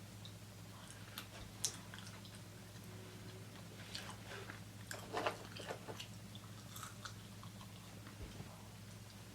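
Close-miked chewing of a soft sandwich: scattered wet mouth clicks and smacks, busiest between about four and six seconds in, over a steady low hum.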